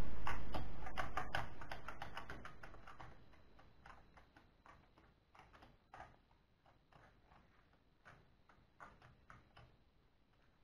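Computer keyboard keys clicking irregularly as a small child presses them, in quick runs at first and then scattered single presses. A loud low rumble at the start fades away over about three seconds.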